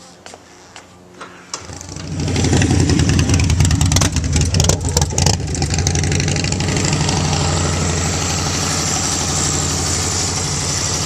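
Bagger motorcycle engine started: a few light clicks, then the engine catches about a second and a half in, is blipped unevenly for a few seconds, and settles into a steady idle.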